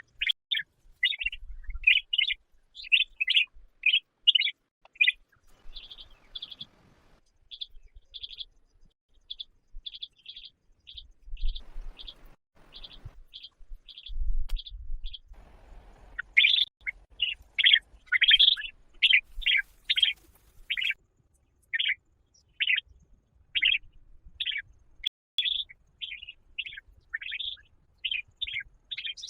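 A bird chirping: short high chirps repeated steadily, about two to three a second.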